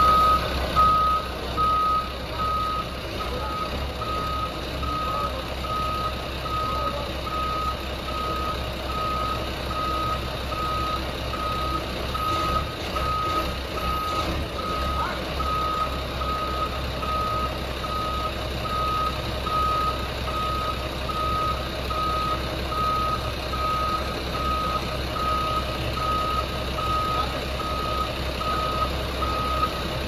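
Heavy-equipment reversing alarm beeping at a single steady pitch and an even pace, a little more than once a second, over the low steady running of a wheel loader's engine.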